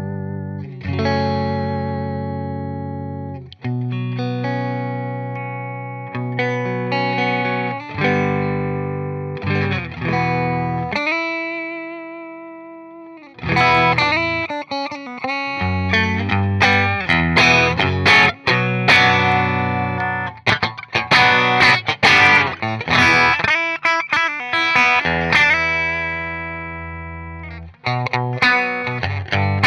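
Electric guitar played through a Fender '65 Deluxe Reverb amplifier and picked up by a Shure SM58 microphone. Chords are struck every couple of seconds and left to ring and fade, then about halfway through it moves into a quicker, busier run of picked notes and strums, ending on a chord left to ring.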